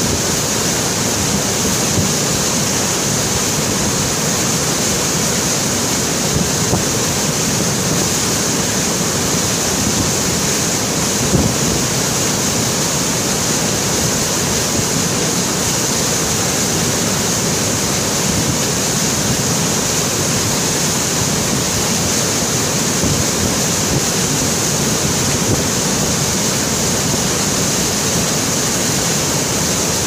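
Glacial meltwater rushing hard and steadily, a constant loud rush of water without pause.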